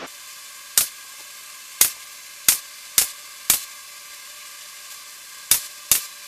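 Pneumatic narrow crown stapler firing staples through thin plywood skin into a torsion box frame: seven sharp shots, five in quick succession, then a pause of about two seconds and two more close together near the end.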